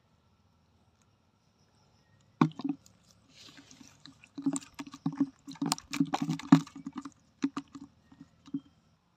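Small fish flapping against the sides and bottom of a plastic bucket holding a little water: a run of irregular knocks and slaps with a hollow ring, starting a couple of seconds in.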